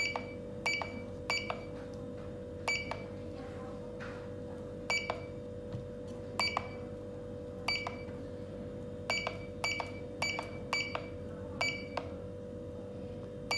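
Keypad of a TA-120 fingerprint time-attendance terminal beeping as its keys are pressed: about twenty short, high beeps at irregular intervals, several in quick runs. A steady low hum runs underneath.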